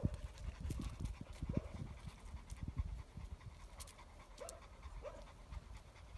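Belgian Malinois panting on the lead, in quick, irregular breaths.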